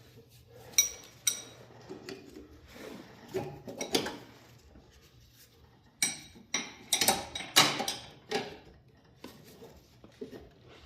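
Metal hand tools clinking and scraping against a snowblower's metal oil drain pipe and nut. Two sharp, ringing clinks come about a second in, then a cluster of louder clanks between about six and eight and a half seconds.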